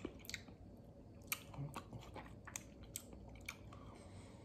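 Faint, irregular wet mouth clicks and lip smacks as a man tastes a little hot sauce off a spoon, about ten short sharp clicks spread unevenly.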